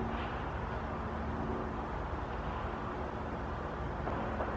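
Steady outdoor background noise with a faint low hum running through it.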